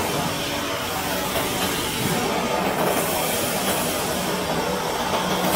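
Steady whirring machine noise from a large CNC router as its gantry travels along the table on its rack-and-pinion drive.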